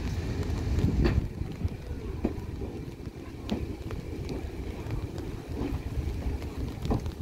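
Diesel engine of a Class 31 locomotive running with a steady low rumble, with wind buffeting the microphone and a few light clicks; the rumble eases slightly about a second in.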